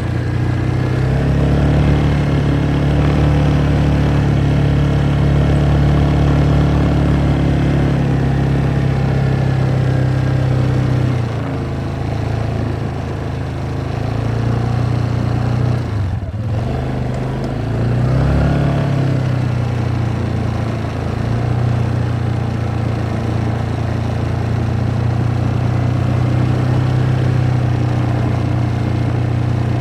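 ATV engine running under way at a steady pace. It eases off about 11 seconds in, then picks up again with a short rise in revs a little later before settling back to a steady drone.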